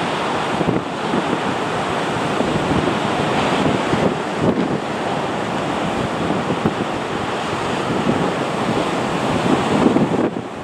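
Distant roar of a Boeing 737-200's Pratt & Whitney JT8D low-bypass turbofans on final approach, a steady rushing sound that swells a little near the end as the jet draws closer, mixed with wind on the microphone.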